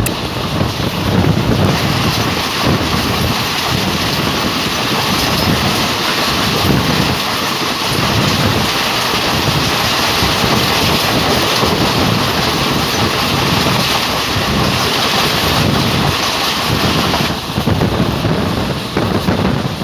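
Rushing rail noise and wind buffeting the microphone at the doorway of a fast-moving passenger train as another passenger train passes close alongside on the next track. The loud hiss of the passing coaches drops away about seventeen seconds in as its last coach goes by, leaving wheel rumble and wind.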